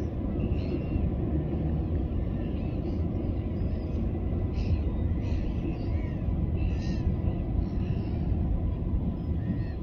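Short, high bird calls repeat every second or so over a steady low rumble.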